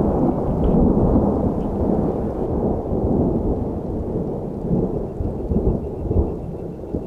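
Long, low rumble of thunder, dubbed on as a sound effect, slowly dying away.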